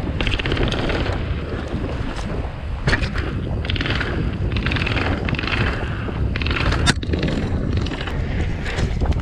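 Wind buffeting the microphone and tyre rumble of a YT Capra Core 1 full-suspension mountain bike being ridden on paved track. Repeated bursts of rapid ticking come through, and there is one sharp knock about seven seconds in.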